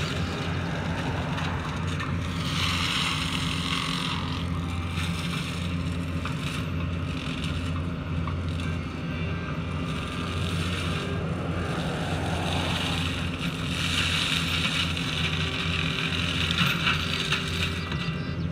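Hyundai wheeled excavator's diesel engine running steadily, with the brush mulcher head on its boom grinding through roadside brush. The cutting noise swells about two and a half seconds in and again from about thirteen seconds on.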